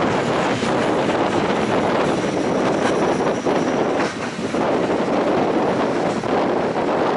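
Passenger train running on the rails, heard from inside the carriage as a steady rumble and rattle, with a faint high wheel squeal for a second or so about two seconds in.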